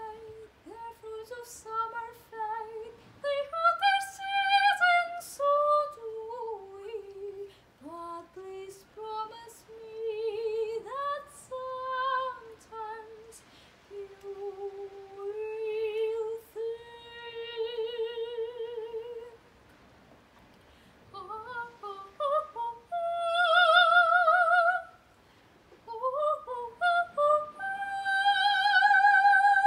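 Solo female soprano singing unaccompanied, a cappella, in a classical style, with vibrato on the long held notes. Her phrases are broken by two short pauses for breath, and she ends on a loud, high sustained note.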